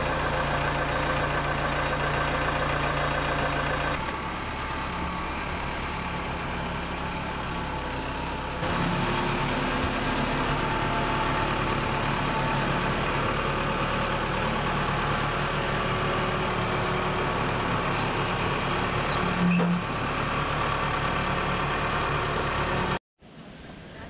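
Backhoe loader's diesel engine running steadily as the machine drives with a load on its front forks. The engine sound shifts abruptly twice and cuts off suddenly about a second before the end.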